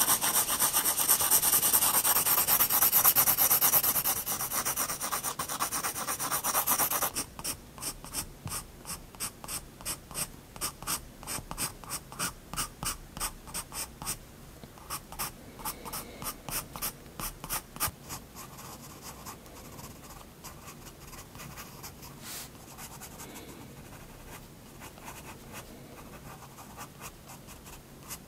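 Soft 7B graphite pencil (Prismacolor Turquoise) scratching on sketchbook paper. For about the first seven seconds it makes dense, continuous strokes. Then it breaks into separate short flicking strokes, a few a second, which grow fainter in the last third.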